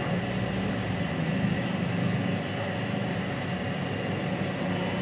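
Steady hiss with a faint low hum: a lit gas stove burner heating oil in a wok, with no sizzle yet.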